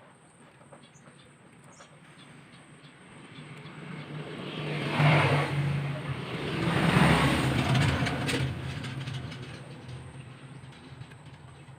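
A motor vehicle passing by: an engine hum and road noise swell, peak twice in the middle, then fade away.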